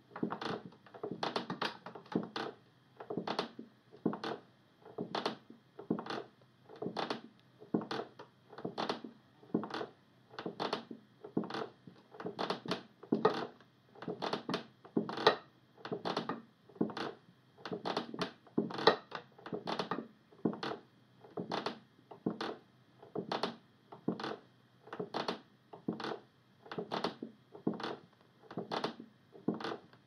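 A wooden rocking chair rocking on a wooden floor: a steady rhythm of wooden knocks, about one a second.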